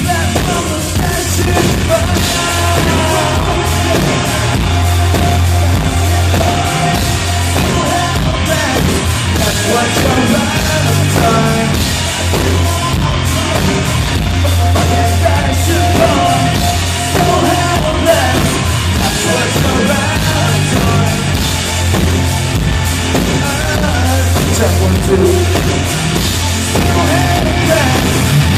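Rock band playing a song live at sound check, a sung vocal over loud full-band backing with heavy bass.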